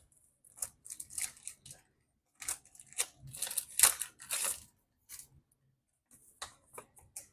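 Rustling, crinkling handling noises as a crimping tool kit is opened, in irregular bursts that are busiest midway, with a few light clicks near the end.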